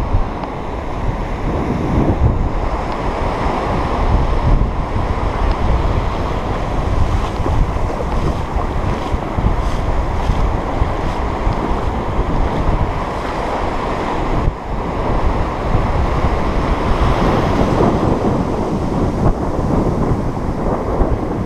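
Wind buffeting the microphone over the steady wash of surf breaking and running up the sand around the angler's feet.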